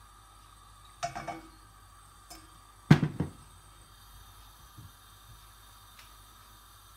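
Kitchen handling knocks: a short cluster of light clinks about a second in, then one louder knock about three seconds in, as the oil bottle is set down on the counter and the wooden spoon comes to rest in the stainless steel pan.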